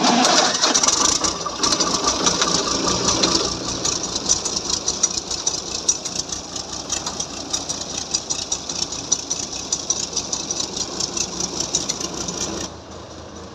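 Truck-mounted borewell drilling rig running: a steady engine drone under a fast, even mechanical clatter and a loud hiss. The sound drops sharply in level near the end.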